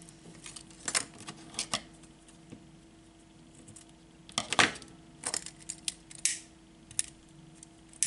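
Scattered light clicks and rustles of scissors and a satin ribbon being handled on a cutting mat. The loudest is a short cluster about four and a half seconds in.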